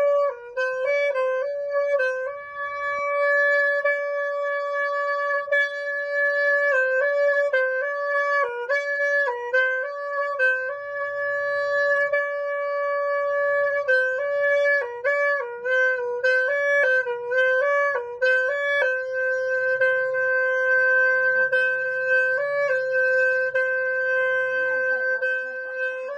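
Music: a solo melody of long held notes linked by quick ornamental runs, played on what sounds like a wind instrument.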